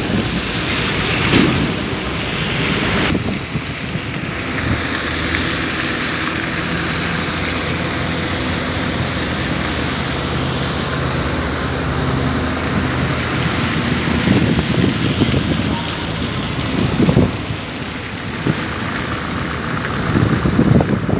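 Steady low machinery hum under wind buffeting the microphone, with a few louder gusts.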